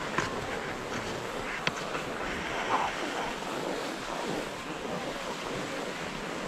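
Cross-country skis sliding over groomed snow, a steady hiss mixed with wind on the microphone, broken by a few short sharp clicks in the first three seconds.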